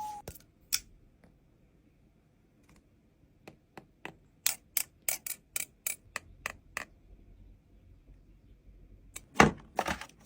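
A run of light, sharp clicks and taps, about three or four a second, then a few louder knocks near the end: small handling noises of a phone and its packaging being unboxed.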